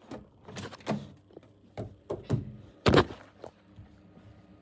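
A door being opened and handled: a series of knocks and thuds, the loudest about three seconds in.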